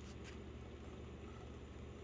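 Quiet kitchen background: a low steady hum under a faint even hiss, with two faint clicks just after the start.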